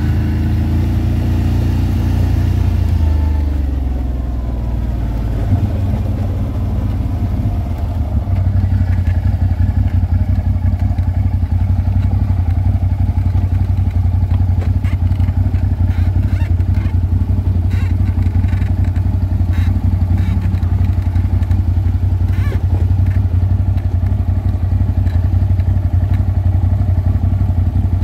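ATV engine running: its pitch falls over the first few seconds as it slows, then it runs steadily and somewhat louder from about eight seconds in, with scattered clicks and knocks over it.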